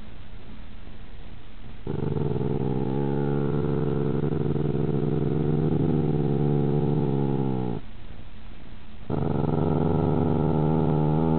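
Two puppies growling at each other over food. There are two long, steady growls: the first lasts about six seconds, and the second starts about a second after it stops.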